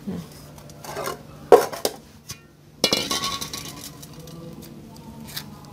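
Aluminium colander and pot clinking and clattering as they are handled and set down, a few knocks with the loudest about three seconds in, followed by a short metallic ring that fades.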